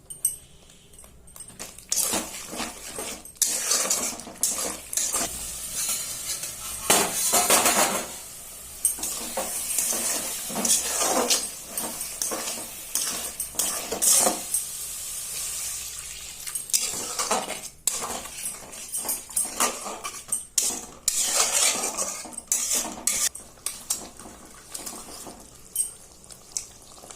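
Metal utensils clattering: a spoon clinking and scraping against pots and plates in irregular knocks, with a hissing haze between them.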